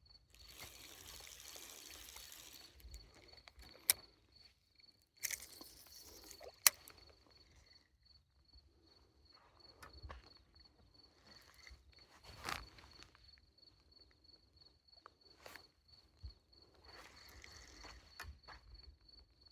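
A cricket chirping in a steady, even high-pitched pulse, over scattered rustling and handling noises. Two sharp clicks come about four and seven seconds in.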